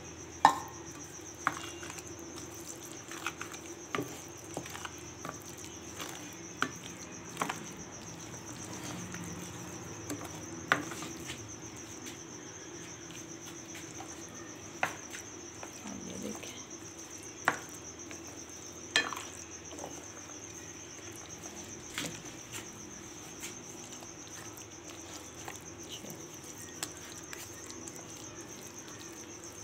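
Pakora batter being mixed in a glass bowl: scattered sharp clicks and taps against the glass every second or two, over a steady high-pitched whine and a low hum.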